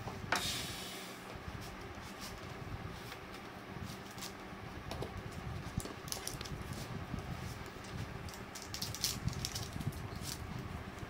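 Cardboard phone box and the phone inside it being handled: a sharp click with a brief hiss about a third of a second in, then scattered light taps and rustles as the phone is lifted out of its tray. A steady fan-like hum runs underneath.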